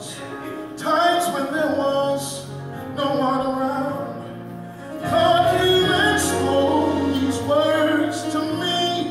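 Gospel music: a praise team singing, with a steady low bass note held underneath for long stretches.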